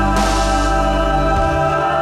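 Background music with held chords, and a hissing, cymbal-like wash that swells in just after the start.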